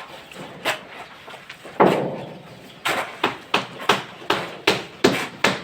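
Repeated hammer blows at a construction site, settling into a steady beat of about three strikes a second, with one heavier blow about two seconds in.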